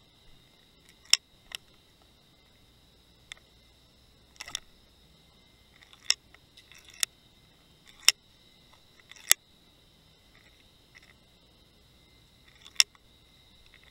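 About nine sharp clicks and knocks at uneven intervals, the rig and underwater camera housing knocking as a fluke jig is worked near the sandy bottom. A faint steady high whine runs underneath.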